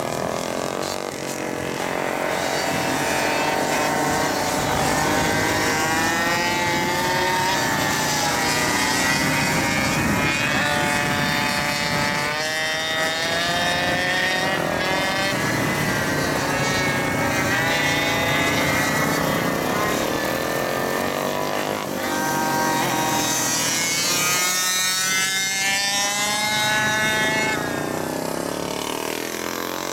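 Engines of racing GoPed GSR46 stand-up scooters, small two-strokes, and motorbikes revving up and down as they lap, several at once, giving overlapping whines that rise and fall in pitch.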